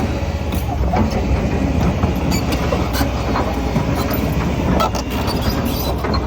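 Kobelco SK210LC-10 hydraulic excavator running, its engine a steady low rumble, with scattered sharp metallic clanks and knocks from the working machine.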